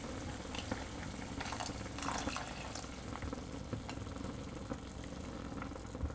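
Vegetable soup boiling in a pot, a steady bubbling with small pops, while a silicone spatula stirs in a cornflour slurry to thicken it.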